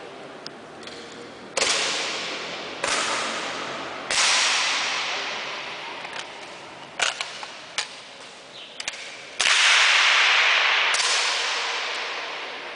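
Air rifle shots, four in all, each a sharp crack that rings on and fades slowly in the hall. Several lighter clicks come in between.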